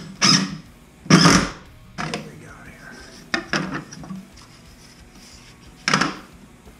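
DeWalt cordless drill driving a screw into a steel urinal hanger bracket in short bursts. It is followed by light clinks and rubbing as an aluminium level is set against the bracket.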